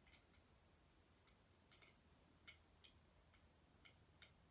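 Near silence broken by about ten faint, short, irregularly spaced light clicks and ticks.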